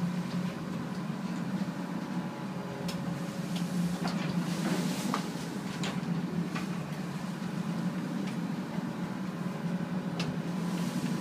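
A boat's engine drones steadily inside a wheelhouse in heavy seas, with scattered knocks and rattles as the bow buries into a swell and spray washes over the windows, mostly in the middle few seconds.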